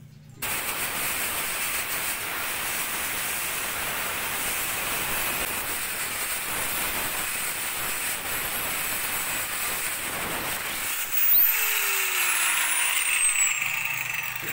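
Handheld angle grinder starts suddenly and cuts through a red plastic toy gun body with a loud, steady, hiss-like grind. About eleven seconds in there is a louder moment, then the grinder is switched off and winds down with a falling whine.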